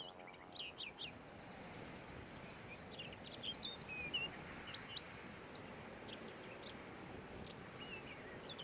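Small songbirds giving scattered short chirps, in clusters, over a steady background noise.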